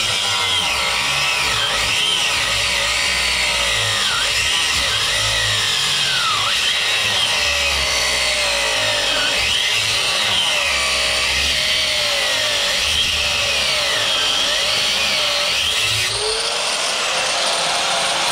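Power grinder cutting into a cast-iron housing, running loud and steady, its whine dipping again and again as the disc bites and recovering as it eases off.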